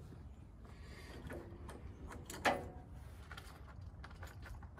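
Light clicks and rustles of things being handled at a workbench, with one sharper knock that rings briefly about two and a half seconds in.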